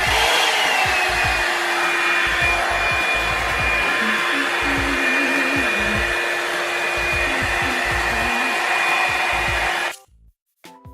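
Revlon One-Step paddle-brush hair dryer switched on at its low setting: a steady rush of air with a motor whine that settles slightly lower in pitch in the first second. It cuts off suddenly about ten seconds in.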